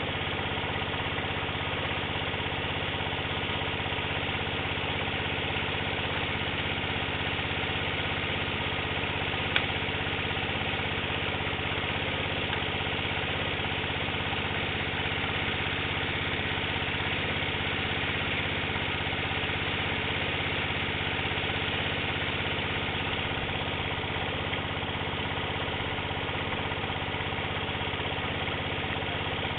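A small engine running steadily at one constant speed, with a single sharp click about ten seconds in.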